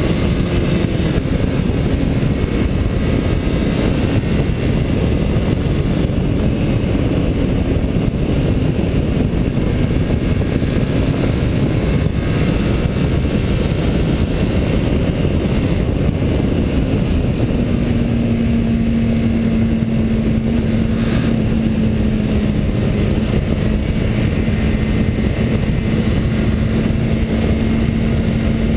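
Kymco Quannon 125 motorcycle's single-cylinder engine running at road speed under heavy wind rush on the helmet-mounted microphone. The engine note drifts slightly lower, then holds a steady, lower tone from about two-thirds of the way in.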